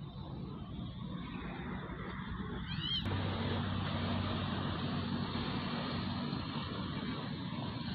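Passing road traffic: a steady rush of vehicle noise that grows louder about three seconds in, with a low engine hum for a few seconds, just after a brief high rising chirp.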